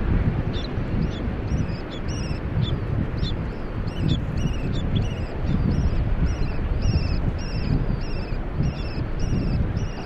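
Peruvian terns (gaviotín chico) calling: a run of short, sharp high-pitched calls, about two a second, more regular in the second half. Heavy wind noise on the microphone runs under the calls.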